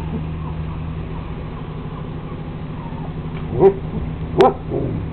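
A dog yipping: two short, high barks close together near the end, the second followed by a fainter one, over a steady low hum.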